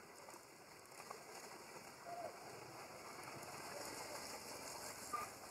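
Water splashing and sloshing as macaques wrestle in shallow water, with a few short high calls, one a little after two seconds and a sharper, louder one near the end.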